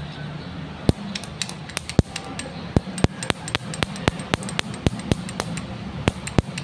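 Spark plug snapping as a motorcycle CDI and ignition coil fire it, in a spark test of the CDI unit. It gives sharp ticks at about four a second, slightly irregular, starting about a second in.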